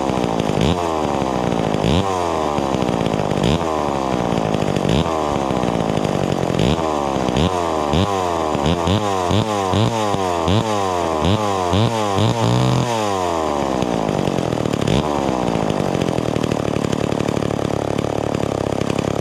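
Old Lombard AL42 two-stroke chainsaw engine running, its throttle blipped over and over so it revs up and falls back again and again. About two-thirds of the way through it settles to a steadier, lower idle.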